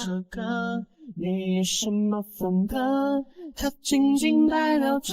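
A woman singing a slow melody in long held notes over music.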